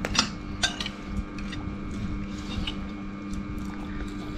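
Metal spoons clicking and scraping against ceramic rice bowls, a few light clicks with most in the first second, over a steady low hum.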